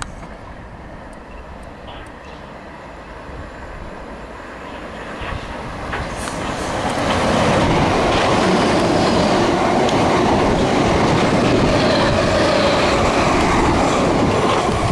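South West Trains Class 455 electric multiple unit approaching and running past along the platform. Its wheels rumble and clatter on the rails, building over the first seven seconds or so and then staying loud and steady as the carriages go by.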